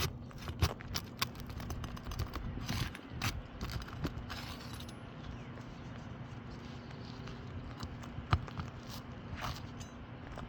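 Hand work on asphalt roof shingles: irregular clicks, knocks and short scrapes of tools and shingles being handled during a shingle repair, with two sharper knocks about two thirds of a second in and about eight seconds in.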